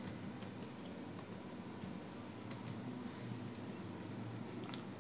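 Computer keyboard typing: light, irregular keystrokes as a short search term is typed.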